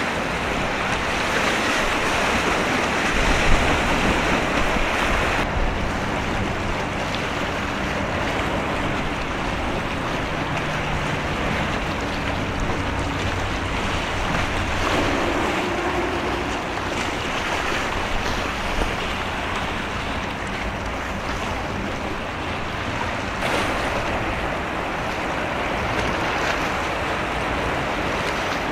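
Wind buffeting the microphone over rushing sea water, with the faint low drone of a ship's engine underneath.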